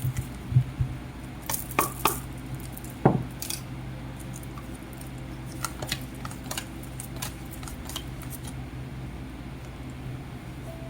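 Scattered light clicks and taps of hands handling small things on a table. They are densest in the first few seconds and thin out after about four seconds, over a low steady hum.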